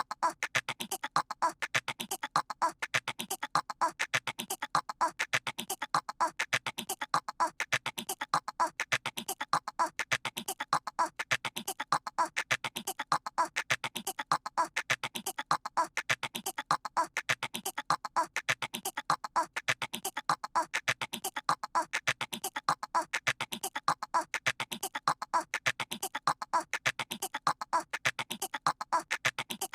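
A cartoon toddler's voice imitating a squirrel with rapid, chattering squeaks, repeated over and over at an even pace in a loop.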